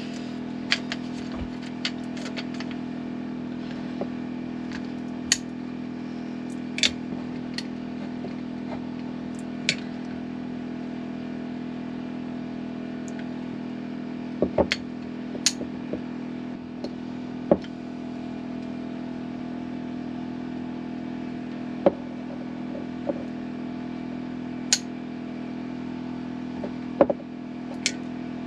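A steady machine hum with a low drone runs throughout. Over it come a dozen or so scattered sharp clicks and taps from a caulking gun being squeezed to lay sealant onto brass skin fittings.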